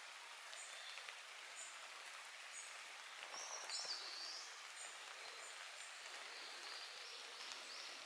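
Wild songbirds in a forest: a high, thin two-note call repeats about once a second, and a louder song phrase of stepped notes comes a little past the middle, over a steady background hiss.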